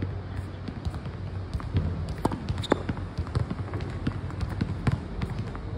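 Tennis ball hit against a practice wall: irregular sharp knocks of the ball off the racket strings, the wall and the hard court, with shoes scuffing on the court, the loudest knock a little under three seconds in. A low steady hum runs underneath.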